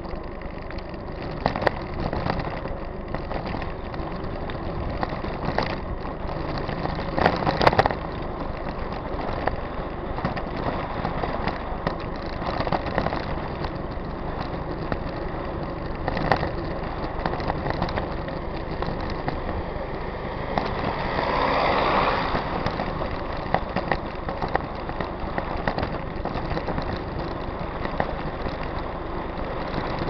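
Riding noise of a mountain bike on a rough road: a steady rumbling rush from tyres and frame rattle, with several sharp knocks from bumps and a louder rushing swell about two thirds of the way through.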